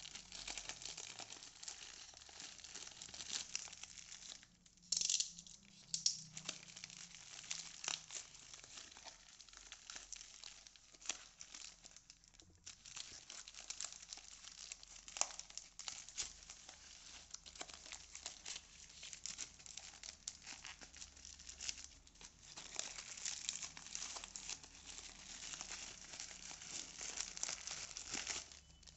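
Polyethylene mailer bag being torn and pulled open by hand, the plastic crinkling and crackling almost continuously, with a couple of sharp, louder rips about five and six seconds in.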